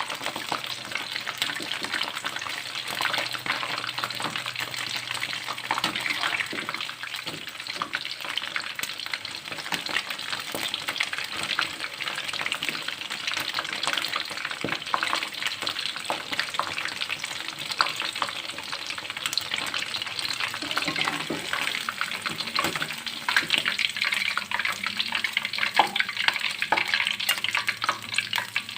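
Flour-battered shrimp deep-frying in hot oil: a steady crackling sizzle with many small sharp pops.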